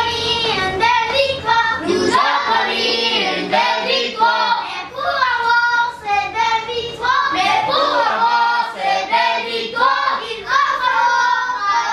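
Children's voices singing together in a group, a sung chant or song that runs without a break.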